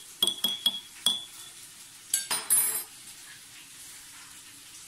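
Spoon clinking against a ceramic mug, four quick clinks in the first second, while crumbled beef stock cubes are stirred into hot water to dissolve. A louder clatter follows about two seconds in, then only a faint steady hum.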